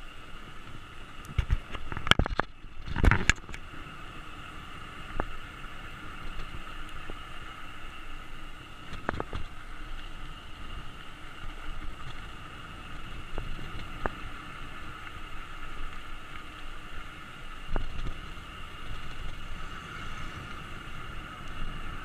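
Steady wind and road noise from a mountain bike rolling over rough asphalt, with sharp knocks and rattles as it hits bumps. The loudest cluster of knocks comes about two to three seconds in, and single clicks follow now and then.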